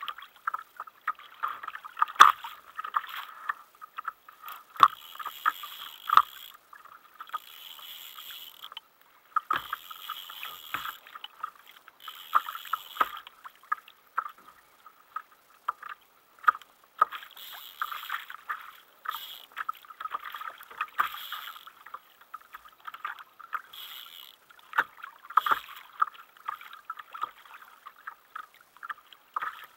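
Water lapping and slapping against a plastic kayak hull in many sharp little hits, with repeated short stretches of a fishing reel being cranked as a hooked fish is played on a bent rod.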